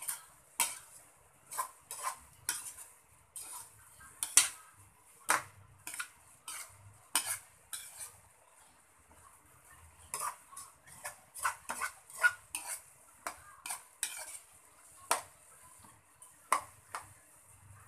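Metal spatula scraping and clacking against a wok as grated jackfruit and dried anchovies are stirred, in irregular strokes about one or two a second, over a faint steady sizzle.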